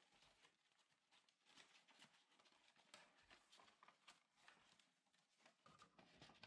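Faint, irregular rustling, scraping and light tapping of folded paper being handled: brown kraft-paper strips fitted around a green origami piece.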